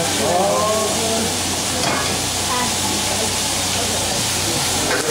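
Food sizzling in a wok over a high flame while a long-handled metal ladle stirs and scrapes it. A couple of sharp knocks of the ladle on the wok come about two seconds in.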